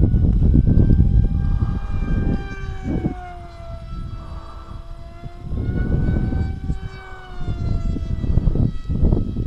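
Whine of a modified HobbyKing Radjet RC plane's motor flying overhead, sliding down in pitch, rising again and falling once more as it passes and turns. Gusting wind rumbles on the microphone underneath.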